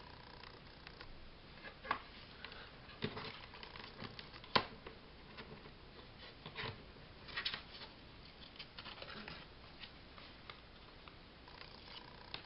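Pieces of paper being handled and positioned on a craft table: scattered faint rustles and light taps, with one sharper click about halfway through.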